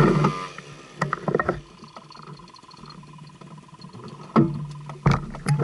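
A motorcycle engine that was running stops just after the start, followed by a few sharp knocks and clicks of handling.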